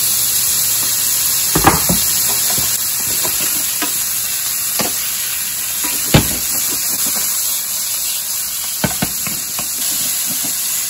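Diced pancetta sizzling steadily in a hot stainless steel skillet, with several sharp knocks and scrapes of a wooden spoon stirring it against the pan.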